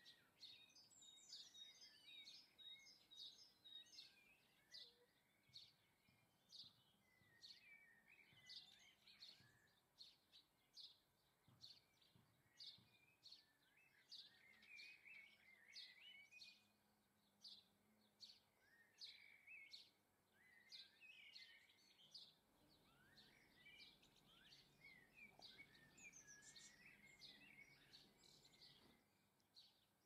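Faint outdoor birdsong from several small birds: a steady run of short high chirps, about one or two a second, mixed with twittering phrases.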